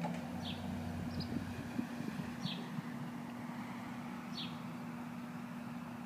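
A bird giving short, high chirps that slide downward in pitch, one every one to two seconds, over a steady low hum.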